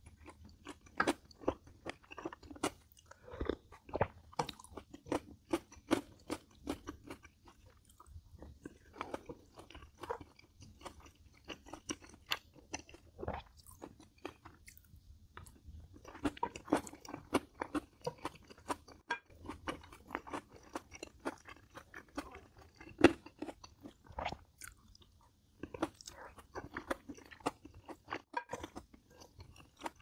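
A person chewing and crunching mouthfuls of food: a dense run of wet crackles and crunches that stops for a moment three times.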